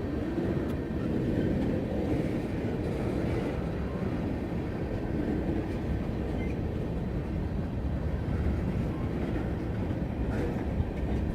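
Freight train rolling slowly past: a steady low rumble of its cars on the rails.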